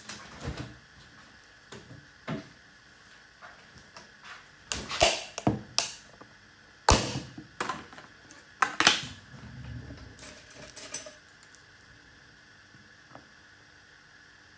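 Kitchen handling noises: irregular clicks, knocks and short rustles of items being picked up and set down, the sharpest knock about seven seconds in, stopping about eleven seconds in.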